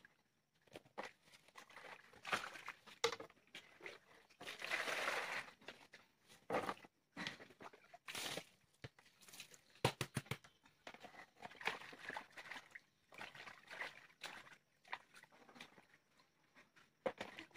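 Water sloshing and splashing in a plastic basin as hands wash river snails, stirring them and lifting water that falls back in. A quick run of sharp clicks about ten seconds in.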